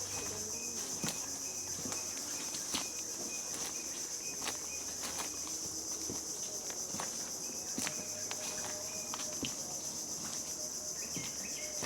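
A steady, high-pitched drone of insects in the mangrove, unbroken throughout, with a few sharp clicks scattered through it.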